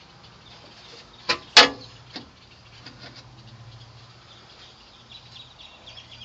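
Two sharp clicks about a second in, the second the louder, then a fainter one and a few light ticks, over a steady low hum. These are knocks from hand work on the speaker parts and wiring.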